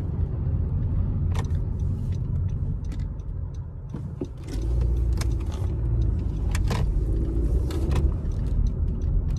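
Low rumble of a Honda car heard from inside the cabin, growing louder about halfway through as it gets under way, with scattered light clicks and rattles.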